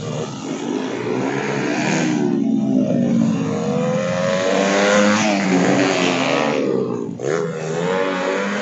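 Small road-race motorcycles revving hard through the gears and dropping off as they brake and lean into corners, the engine pitch rising and falling again and again, with more than one bike heard at once.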